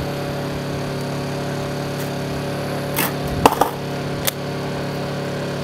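Steady low mechanical hum, with a few sharp clicks and knocks over it, the loudest a quick cluster about three and a half seconds in.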